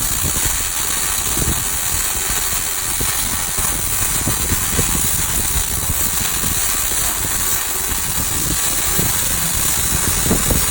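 Arc welding: a continuous, steady crackling hiss from the welding arc.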